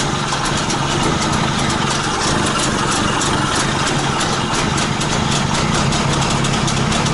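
Trabant 601's two-cylinder two-stroke engine idling steadily, a little below its normal idle speed, while its alternator charges the batteries.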